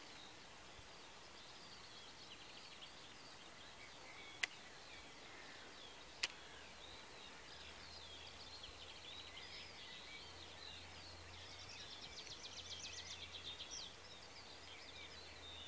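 Faint birdsong: small birds chirping and warbling throughout, with a fast, even trill for about two seconds near the end. Two sharp clicks about two seconds apart, a third of the way in, are the loudest sounds.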